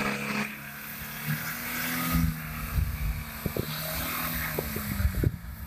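Off-road vehicle engine running under load, its note shifting a little in pitch, with several sharp low thumps in the second half.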